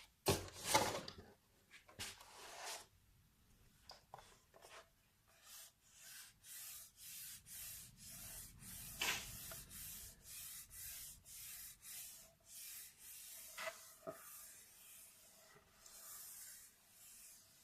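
Paper being rubbed in soft, rough strokes: a few louder swipes in the first two seconds, then a steady run of about two strokes a second.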